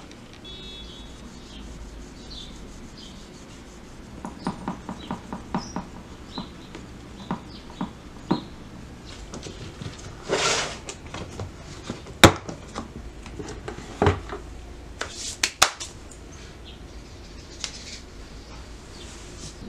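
Quiet pottery-studio handling sounds: a carving tool rubbing on leather-hard red earthenware clay, then scattered light clicks and knocks. About halfway through comes a short rustling scrape, then several sharp knocks and clicks as a clear plastic cover and base are handled.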